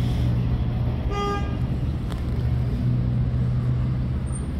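A vehicle horn gives one short toot about a second in, over a steady low rumble.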